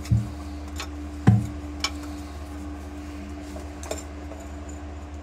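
A few sharp metallic clicks and knocks of a wrench on a small brake line fitting as it is unthreaded from an excavator's rotary manifold, the loudest about a second in, over a steady low hum.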